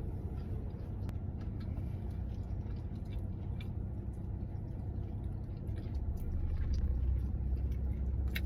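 Steady low background rumble that swells slightly near the end, with a few faint clicks over it.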